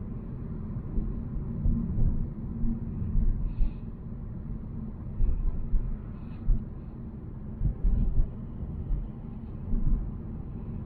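Volvo C70 driving: steady low rumble of the car on the road, with irregular low thumps and a faint short swish every couple of seconds.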